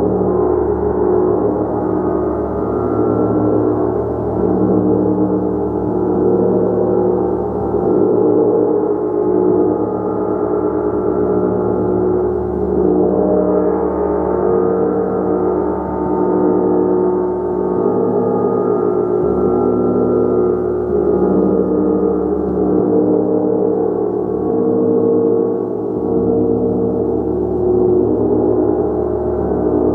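Gong played continuously: a dense, sustained wash of many overlapping ringing tones that swells and ebbs every couple of seconds without dying away.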